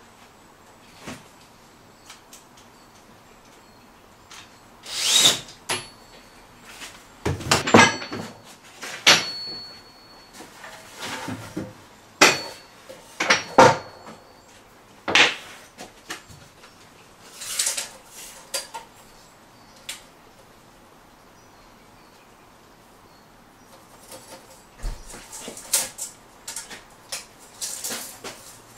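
Wooden scaffold boards and metal bar clamps being handled: a dozen or so separate knocks and clatters of wood and metal, one with a brief metallic ring, then a few seconds' lull and lighter clicks near the end.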